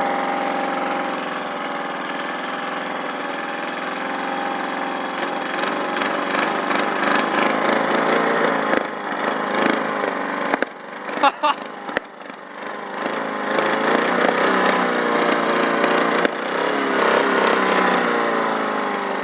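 Small lawn mower engine running on fuel with two-stroke oil mixed in. Its steady running turns rough and crackly, and about ten seconds in it nearly dies in a run of sharp pops and crackles. It then picks back up, revving up and down, a sign of an engine tuned to backfire and popping.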